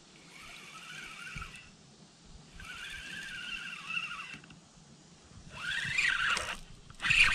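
Fishing reel being cranked in four spells, its gears whining with a pitch that rises and falls with the cranking speed; the spells get louder toward the end, the last short and sharpest. The reel is hauling in a bass that the angler has taken for a snag on a piece of a tree.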